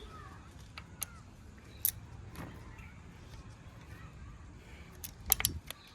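Scattered small metallic clicks and clinks, with a louder cluster near the end, as the mounting bolts of a bicycle's hydraulic disc brake caliper are unscrewed and taken out.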